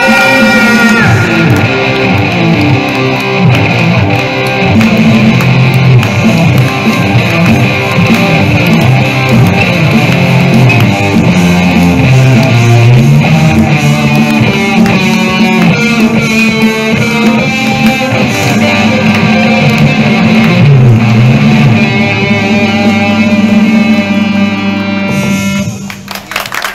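Amplified electric guitar playing a rock piece over a steady low bass line, with quick runs of notes in the middle. The music stops shortly before the end.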